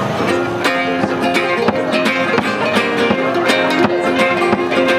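Live acoustic folk band playing an instrumental passage: strummed acoustic guitars with a fiddle holding long, level notes over a steady rhythm.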